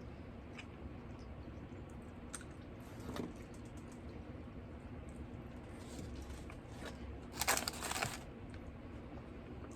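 Close-up eating sounds: chewing with small mouth clicks, and a brief louder noisy burst about seven and a half seconds in.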